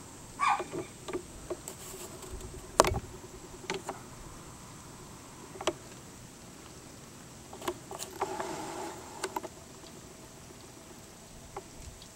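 Scattered clicks and knocks of footsteps and handling in dry grass, with one sharp knock about three seconds in, over a faint steady high hum.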